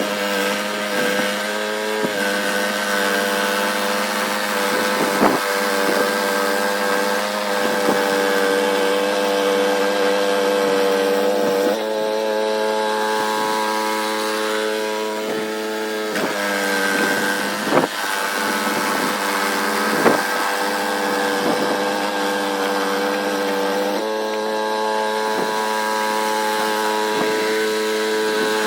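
Small gasoline snowblower engine running steadily, its pitch shifting a few times, with a few sharp knocks.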